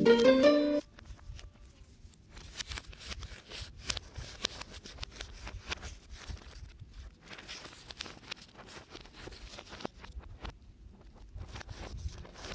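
A few notes of mallet-type music end within the first second. After that, sheets of paper are handled and cut with scissors: many short, crisp rustles and snips that come irregularly.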